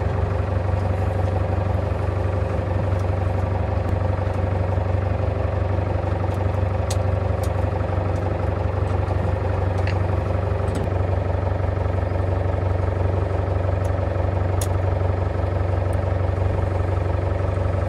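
Fishing boat's engine running steadily with a constant low hum. There are a few faint clicks.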